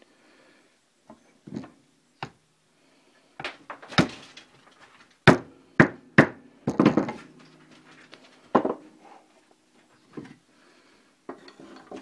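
Wooden mallet striking a center punch to mark the center of a green-wood pipe blank before drilling, along with tools being handled on a wooden board: about a dozen sharp, irregular knocks, the loudest about 4 and 5 seconds in.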